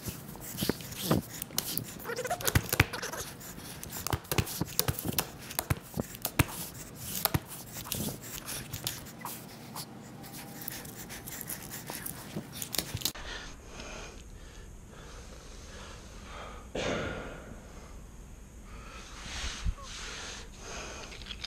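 Hands rubbing and brushing the pile of commercial carpet over a freshly joined seam: a busy run of scratchy rubs and light clicks. About thirteen seconds in the scratching stops, leaving a quieter background with one short rush of noise a few seconds later.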